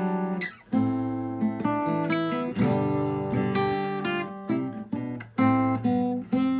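Seagull folk acoustic guitar being played, ringing chords with picked and strummed notes. The sound briefly breaks off about half a second in and dips again a little after five seconds.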